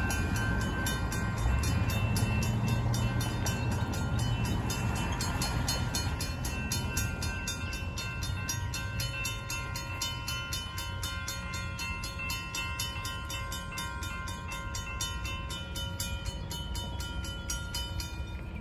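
Railroad grade-crossing warning bell ringing in a rapid, even rhythm of a few strikes a second as the crossing gate comes down, stopping just before the end. Road traffic rumbles over the crossing during the first several seconds.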